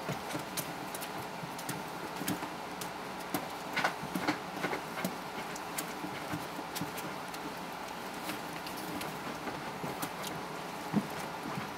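Young puppies' paws and claws scuffling and tapping on puppy pads and the fabric floor of a pen, as scattered small irregular taps, a few louder ones about four seconds in and near the end, over a steady background hum.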